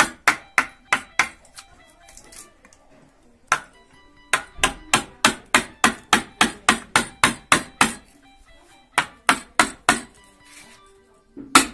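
Wooden mallet striking a chisel into a log while roughing out a madal drum shell: runs of sharp wooden knocks about three to four a second, broken by short pauses.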